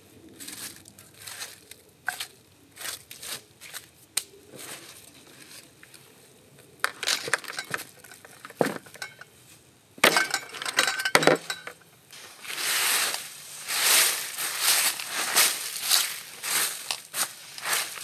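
Crunching and rustling of firewood and dry leaves being handled, with a few sharp clinks about ten seconds in. From about twelve seconds in there is a louder run of rhythmic crunching strokes, roughly two a second.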